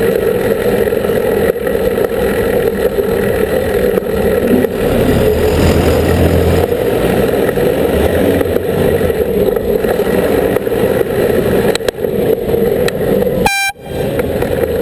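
Steady city traffic noise heard from a bicycle, then near the end a single short blast of a cyclist's air horn, sounded as a warning at a lorry running a red light.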